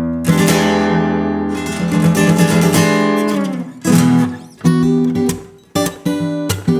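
Tagima Woodstock TW-25 folk acoustic guitar being strummed: one chord left ringing for about three and a half seconds, then a few shorter strummed chords.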